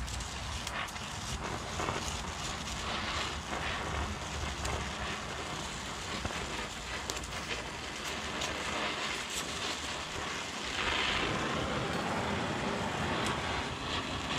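Oxy-acetylene welding torch with a number 4 tip running with a steady hiss, with scattered small crackles and pops. It gets a little louder about eleven seconds in.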